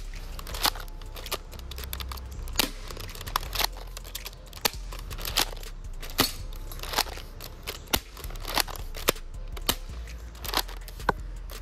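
Double Eagle M56B tri-shot spring airsoft shotgun being pumped and fired over and over, slam-fired, with sharp clacks about every half second to a second.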